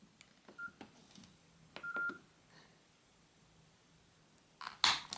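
Nokia 6630 keypad being pressed: soft key clicks and two short single-pitch key beeps, the second a little longer. Near the end come a few sharp, louder clicks of the phone being handled.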